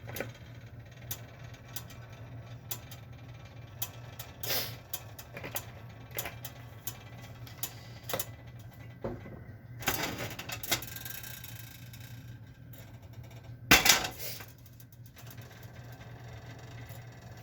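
Kitchen handling sounds: scattered light clicks and taps of utensils and containers over a steady low hum, with a brief hiss about ten seconds in and one loud knock about three-quarters of the way through.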